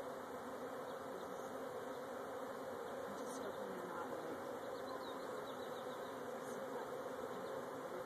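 Steady, dense buzzing hum of a large swarm of honeybees flying around an opened hive box.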